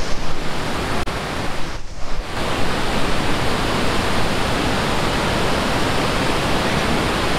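Steady rush of a waterfall, white water cascading down a rocky channel between boulders, after a brief dip about two seconds in.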